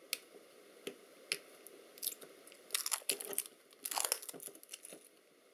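Clear adhesive tape being peeled off a probe's inner assembly, crackling in scattered snaps with two longer runs of crackling about three and four seconds in.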